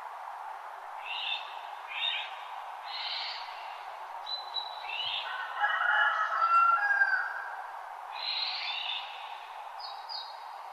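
Several wild songbirds singing in a dawn chorus: short repeated chirping phrases, with a louder, more warbling song about halfway through, over a steady background rush.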